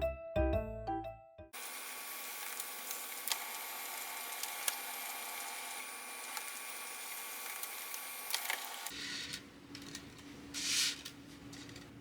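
Light melodic background music ends about a second and a half in. It gives way to a steady hiss with a few faint clicks, which drops to a quieter low hum about nine seconds in, with a brief rustle near the end.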